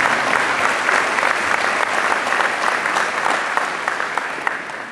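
Audience applauding, a dense run of many hand claps that dies away near the end.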